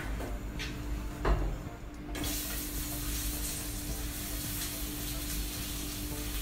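A few knocks of the pan and utensils, then about two seconds in a frying pan of hot oil starts sizzling steadily as floured lobster pieces go into it.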